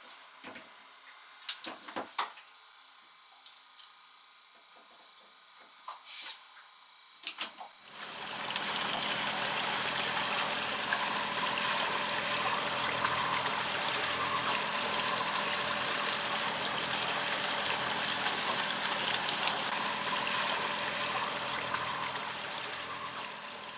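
Light clicks and knocks of hands handling the fuel pickup fittings on a plastic diesel tank. About a third of the way in, a steady rushing noise like running water takes over and fades out at the end.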